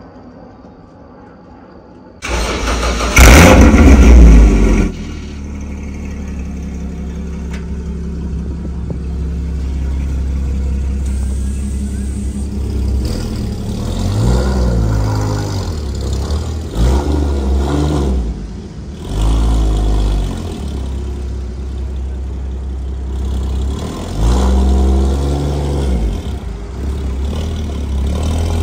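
Porsche Cayman with a freshly modified aftermarket exhaust starting up about two seconds in, flaring loudly in revs and then settling to a steady idle. The engine is then blipped several times, each rev rising and falling back to idle.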